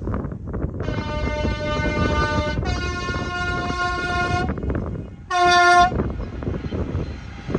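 Train horn sounding a two-tone call, a high note then a low note, followed a moment later by a short, louder blast on the low note, over the rumble of a train on the move.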